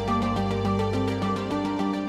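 Background music: a quick, even pulse of notes over a low sustained bass note.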